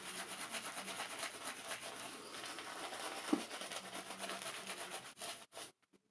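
Semogue 830 boar-bristle shaving brush scrubbing shaving-cream lather on a face: a scratchy rubbing made of many quick, even strokes, re-lathering between razor passes. It stops about five seconds in.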